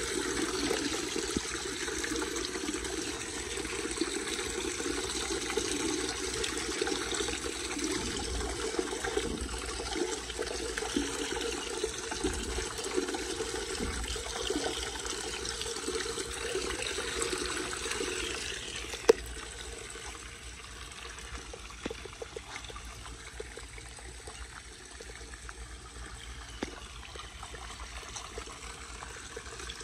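Water running and trickling down through a steel storm-drain grate as the leaves clogging it are cleared. The flow gets quieter about two-thirds of the way through, with a single sharp click just after.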